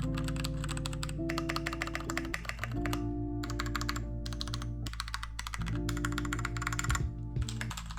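Keys of an RK61 mechanical keyboard clicking rapidly, in several bursts with short pauses, over background music with steady held notes.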